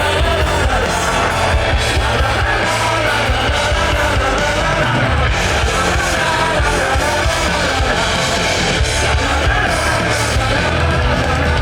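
A live rock band playing at full volume, with drums, bass and guitars, and voices singing or yelling along over the music.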